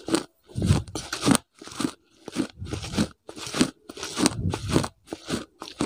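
Mouth sounds made right against a clip-on microphone, imitating the chewing and crunching of food. The bursts come about two a second.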